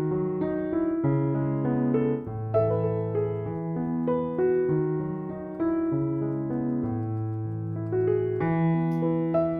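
Soft background piano music, slow chords with a melody on top, changing about once a second.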